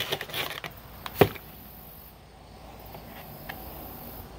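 Foil zip-top bags rustling as they are handled, then one sharp click about a second in and a faint tick later.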